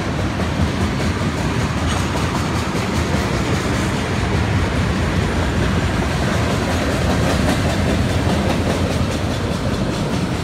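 CN freight train's tank cars and boxcar rolling past close by: a loud, steady rumble of steel wheels on the rails, with repeated clicks of the wheels crossing rail joints.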